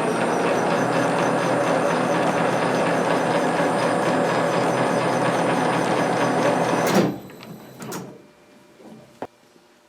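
Metal lathe running under power with the half nut engaged for a threading scratch pass, its gearing clattering steadily with a fast even ticking. About seven seconds in it is braked to a sudden stop with a sharp click, followed by a few faint clicks.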